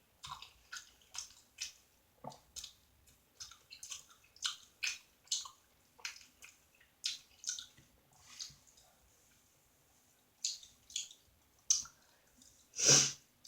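Close-up wet mouth sounds of someone chewing food: irregular smacking clicks several times a second, a short pause about nine seconds in, then a louder wet smack near the end.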